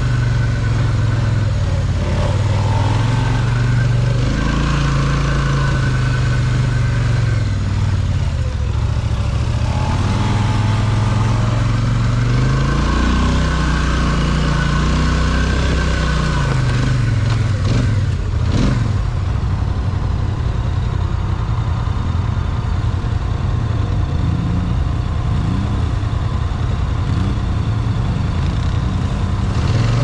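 Polaris Scrambler XP 1000 S ATV's twin-cylinder engine running on a trail ride, its pitch rising and falling as the throttle opens and closes, with a single sharp knock about two-thirds of the way through.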